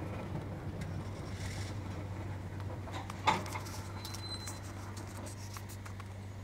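Open passenger railcar rolling slowly, with a steady low hum and scattered light clicks and creaks. One sharp knock comes a little over three seconds in.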